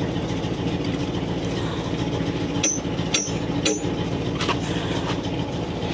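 Crane truck's engine running steadily, with three sharp clicks about half a second apart around the middle.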